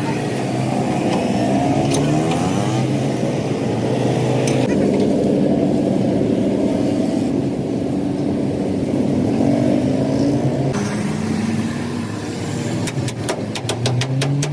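A truck engine running and revving, its pitch rising and falling and changing abruptly twice. Near the end comes a quick run of sharp clicks, about five a second.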